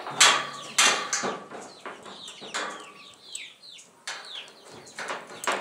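Metal gate clanking and rattling in a series of sharp knocks as it is latched, with chickens clucking, their short falling calls coming in the middle.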